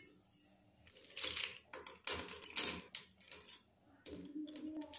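Kangaroo-brand slate pencils clicking and clattering against each other and the concrete floor as a hand picks through a pile of them, with a couple of louder rattling, scraping bursts.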